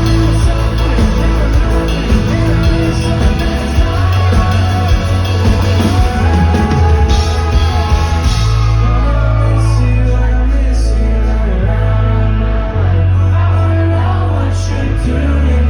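A live pop-rock band playing a song: a singer over heavy bass and drums, loud throughout.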